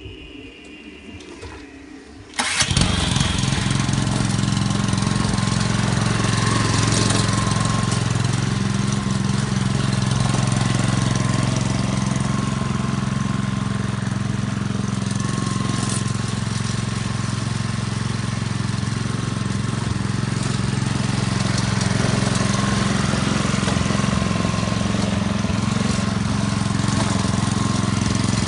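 Lawn mower engine starting abruptly about two and a half seconds in, then running steadily at a constant speed.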